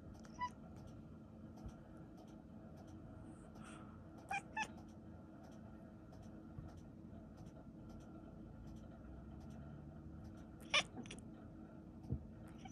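A domestic cat gives a few short, quiet meows: one near the start, two in quick succession about four seconds in, and the loudest about three-quarters of the way through. A low thump follows near the end.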